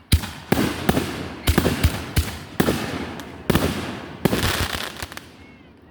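Consumer firework cake with a fan pattern firing a rapid volley: about a dozen sharp bangs at uneven intervals, roughly two a second, each trailed by a hissing crackle. The volley thins out and stops near the end.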